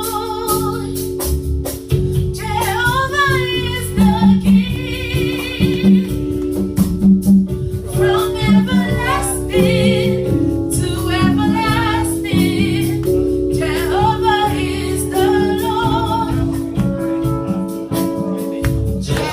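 Live gospel music: a woman's voice singing over sustained keyboard chords, with a bass and drum beat that comes in about two seconds in.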